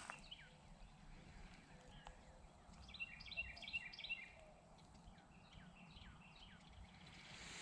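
Faint birdsong: a quick run of repeated chirps about three seconds in, and a few short down-slurred call notes before and after it, over quiet outdoor background noise.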